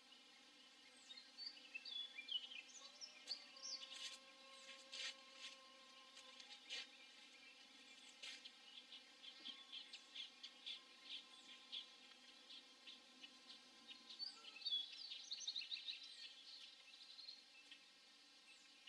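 Faint bird chirps and short calls from a nesting colony, busiest near the start and again later on. A few sharp clicks sound among them, and a faint steady hum runs underneath through the middle.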